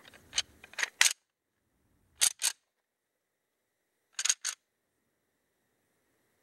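Short, sharp clicks close to the recorder: three in the first second, then a pair at about two seconds and another pair near four and a half seconds.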